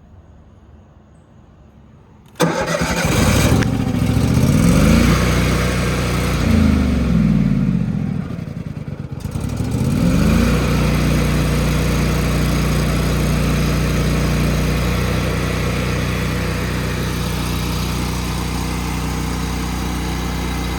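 Miller Bobcat 250 engine-driven welder-generator starting up suddenly about two and a half seconds in. Its engine speed rises and falls for several seconds, then settles into a steady run about ten seconds in.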